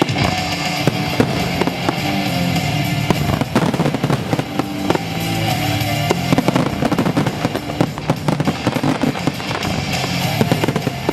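Fireworks show with many bangs and crackling bursts going off continuously over loud music with a steady beat and bass.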